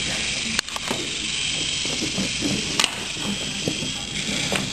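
Small electric motor of a battery-powered toy train engine running steadily as it pulls another engine along wooden track, with three sharp clicks as the wheels cross track joints.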